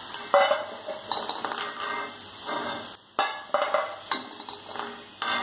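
Perforated metal skimmer scraping and knocking against a metal kadai as fried cheeda balls are scooped out of hot oil, several times, over the faint sizzle of the frying oil.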